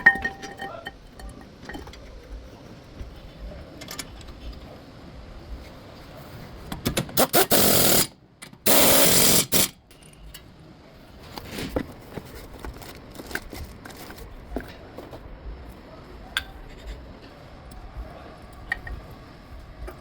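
A power tool run in two short bursts, the second a little over a second after the first, amid scattered light clicks and knocks of hand work on the brake assembly.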